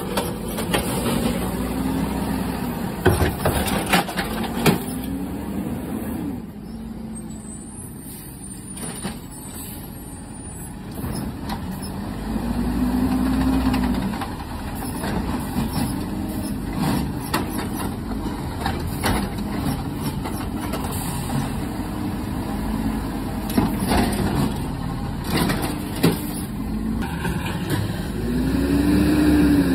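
Garbage truck engine revving up and dropping back several times, loudest near the middle and at the end, while it works a load of trash. Sharp clanks and bangs come in clusters near the start and again later on.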